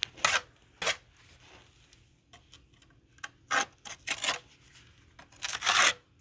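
A masonry tool scraping over fresh mortar and concrete block in short, irregular strokes, the longest near the end.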